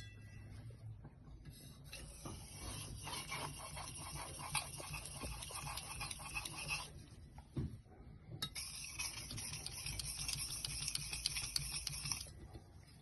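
Chinese cleaver blade being stroked back and forth across a whetstone: quick, hissy scraping in two long runs with a short pause between them.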